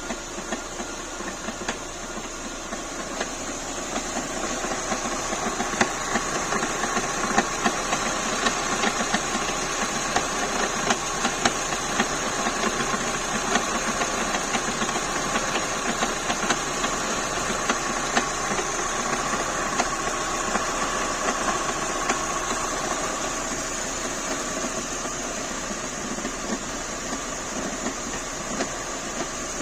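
Renault K4M 1.6-litre 16-valve four-cylinder petrol engine running steadily, with sharp knocks scattered through its sound: an extraneous knock inside the engine. It grows a little louder over the first few seconds.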